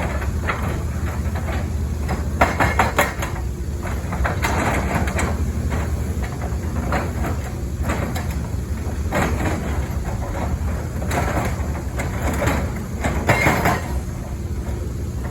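Caterpillar 320 excavator's diesel engine running steadily under load, with several bursts of rapid metallic clattering from its hydraulic breaker hammer striking.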